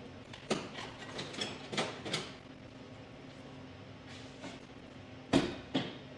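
Metal hand tools and suspension parts clicking and clanking during rear control-arm work: a quick run of clicks in the first couple of seconds, then two louder knocks near the end.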